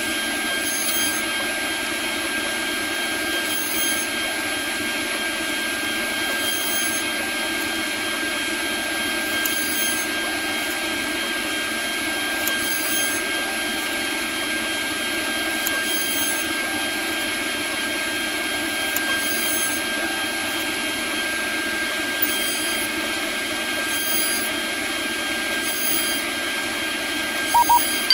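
CNC router spindle running with an end mill cutting Delrin plastic: a steady whine with several fixed high tones over a noisy cutting sound, with a faint change about every three seconds. Two short, sharp sounds near the end.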